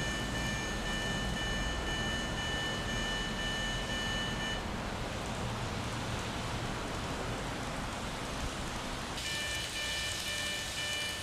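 Electronic level-crossing warning sounding as a repeating set of high tones. It cuts off about four and a half seconds in, as the section clears, and comes on again about two seconds before the end as the next train enters. A steady hiss runs underneath throughout.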